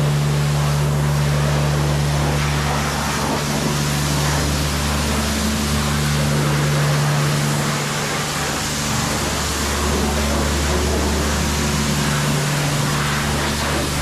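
Off-road vehicle engine running at a steady drone, with a heavy rush of wind and driving noise over it; the engine note briefly drops a few times.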